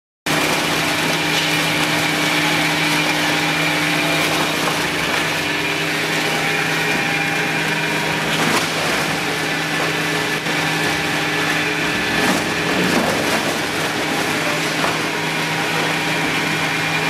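EPS foam hot-melt recycling machine running: a steady electric motor hum with a high whine over the rumble of its twin-shaft crusher, with a few brief knocks.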